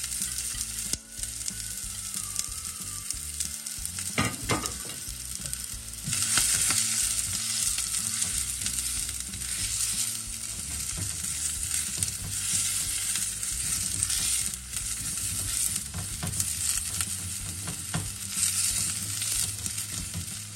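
Chopped onion and red pepper sizzling in hot olive oil in a stainless steel saucepan, stirred with a spatula; the sizzle grows louder about six seconds in.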